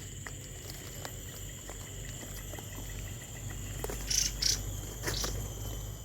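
Forest ambience: insects trilling in steady high tones, with scattered faint clicks and three short hissy bursts about four to five seconds in.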